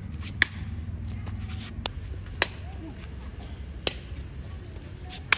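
Khmer shuttlecock being kicked back and forth, each kick a sharp slap of foot on the shuttlecock's base. There are five kicks, mostly about a second and a half apart, over a steady low rumble.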